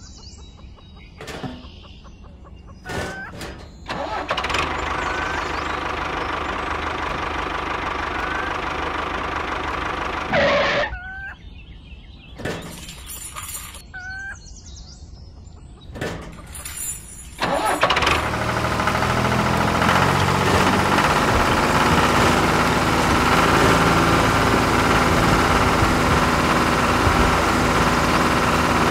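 Scattered clicks and taps of small model parts being handled, with a steady mechanical whirr for several seconds early on. About two-thirds of the way through, a loud, steady tractor-engine sound starts and keeps running.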